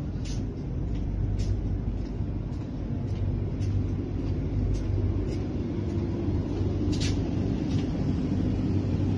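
Steady low hum inside a Vande Bharat Express train coach, with light footsteps about twice a second as someone walks down the aisle.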